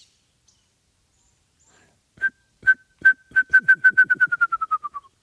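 A person whistling an imitation of a wrentit's bouncing-ball song. A few spaced notes about two seconds in speed up into a quick run of evenly pitched notes that slides slightly lower in pitch at the end, like a ping-pong ball bouncing to rest.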